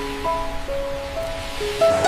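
Background music: a slow melody of held single notes over a soft steady hiss.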